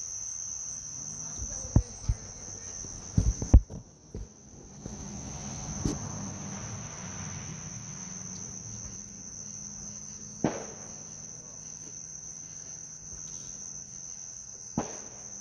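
Crickets chirring steadily, with several sharp knocks or pops. The loudest come in a cluster about two to four seconds in, with single ones later. Right after the cluster the chirring is briefly muffled.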